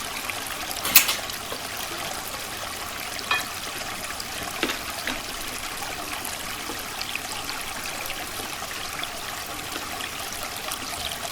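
Creek water trickling steadily over stones, with a sharp click about a second in and a couple of fainter clicks later.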